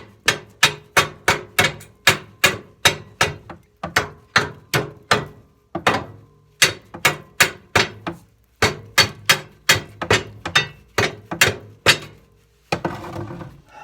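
Hammer striking a nut threaded onto a stuck tractor frame bolt: rapid repeated blows, about three a second, in runs broken by short pauses, stopping shortly before the end, with a short rustle after. The bolt is being driven out but is holding fast.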